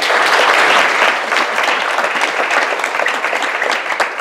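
Congregation applauding, a dense clapping that is loudest in the first second and slowly tapers off.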